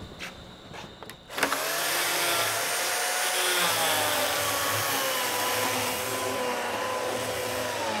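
Battery-powered chainsaw starting about a second and a half in and cutting into wood, a steady electric whine whose pitch sinks slowly under load. A few light knocks come before it starts.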